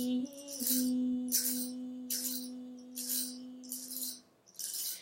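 Music: a woman holds one long sung note, on the Spanish word 'raíz', that fades out about four seconds in. A tambourine or shaker rattles along about once a second.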